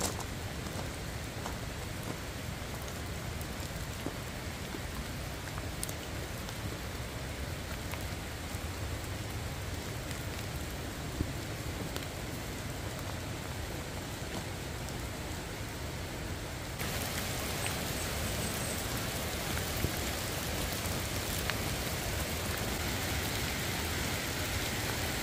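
Steady rain falling on forest trees and ground, an even hiss with the odd drop tapping close by. About two-thirds of the way through, the hiss turns brighter and a little louder.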